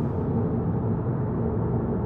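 Inside the cabin of a Volkswagen Golf GTI Mk7.5 on the move: a steady low rumble of engine and road noise.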